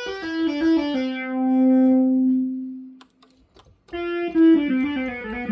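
Monophonic analog synthesizer, a restored OSCar, played in a bright, buzzy tone. A quick falling run of notes ends on a long held low note that fades away. After a short pause, a second falling run ends on another held note.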